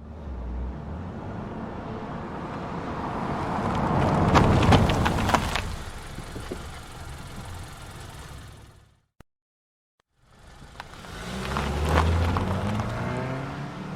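A car driving past, its engine and tyre noise swelling to a peak about four to five seconds in and then fading away. After a second of silence, a second car passes, its engine note rising and falling as it goes by.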